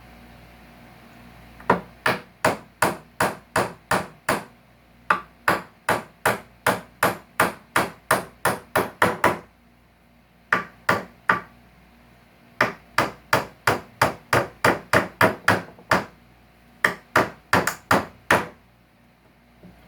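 Hammer striking repeatedly at nails and staples in salvaged couch-frame wood. The blows come in quick, even runs of about three a second, with short pauses between runs.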